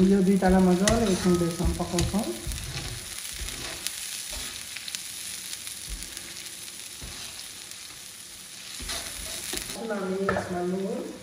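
Spiced mustard oil with chilli paste and masala sizzling and frying in an iron karahi, with a metal slotted spatula stirring and scraping through it in the first few seconds. A low voice sounds briefly at the start and again near the end.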